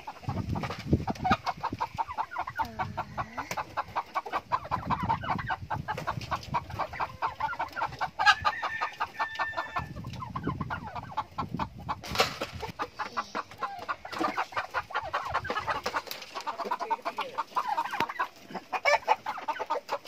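A flock of chickens clucking continuously, many birds at once in a rapid, overlapping chatter.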